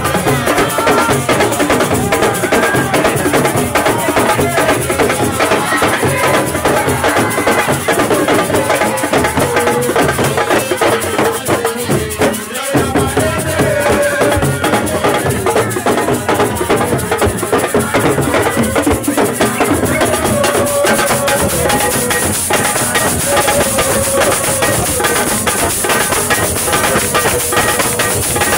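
Music with steady drumming and rattles, with a brief dip about twelve seconds in.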